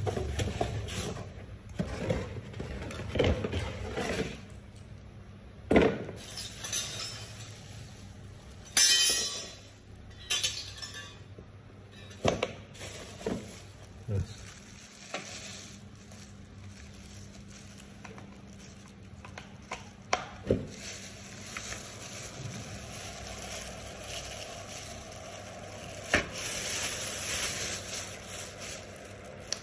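Handling noise from unpacking PAR LED stage lights: irregular clicks, knocks and light clinks, with short bursts of rustling packaging, the strongest about nine seconds in.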